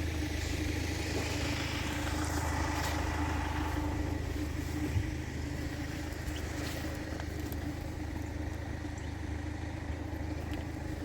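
Steady low engine hum of vehicles idling, with a broader wash of traffic-like noise that swells in the first few seconds.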